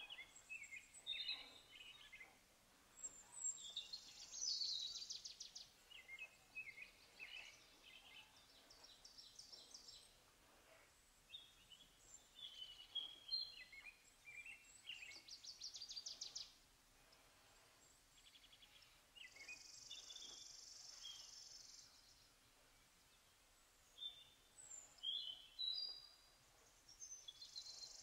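Faint chorus of birds, with scattered chirps and short whistled calls. Several times a high, rapid trill or buzz sounds for one to two seconds.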